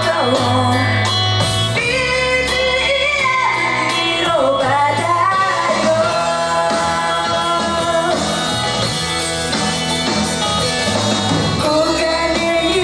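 A woman singing a live rock-pop idol song into a microphone over loud band music with guitar and a steady beat.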